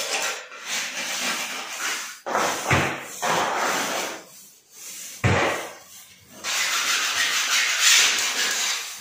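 A paintbrush rubbing paint onto a wall in repeated scratchy strokes, coming in spells with short pauses, with two dull knocks about three and five seconds in.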